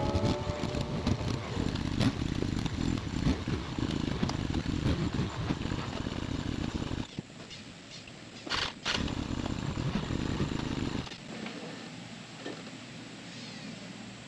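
Polaris Sportsman ATV engine running under load as it tows a small trailer, then easing off about halfway through. It runs again briefly after a short sharp noise and stops about three-quarters of the way in.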